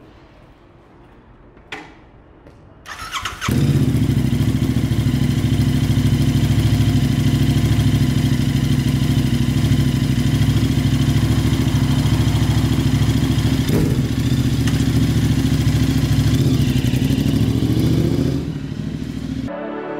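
Royal Enfield Continental GT 650's parallel-twin engine with a Stinger 2-into-1 aftermarket exhaust: a click, then the electric starter cranks about three seconds in and the engine catches and idles steadily and loudly. Near the end the engine note rises as the bike pulls away, then the sound cuts off.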